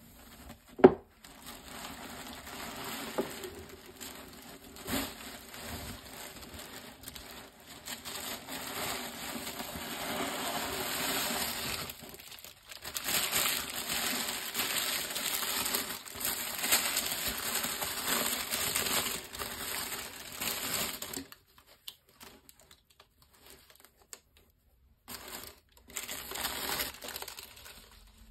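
Tissue paper and a cloth drawstring bag being handled, crinkling and rustling, loudest in the second half, with a sharp tap about a second in. The rustling stops about three quarters of the way through and returns briefly near the end.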